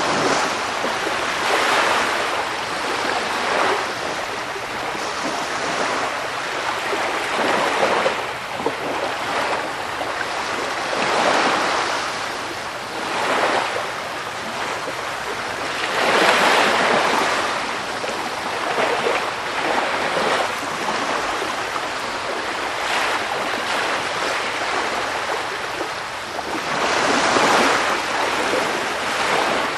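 Sea surf: waves washing onto shore in a continuous hiss that swells and falls back every few seconds.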